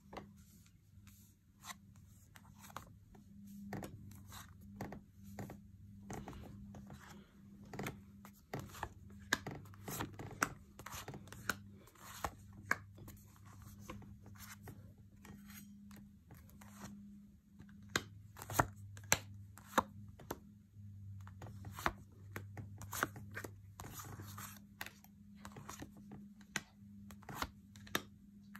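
A deck of cards being shuffled by hand: a long run of irregular soft slaps and rustles, with a low steady hum underneath.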